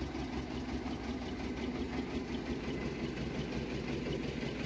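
Engine of a small open-carriage toy train idling, steady and even.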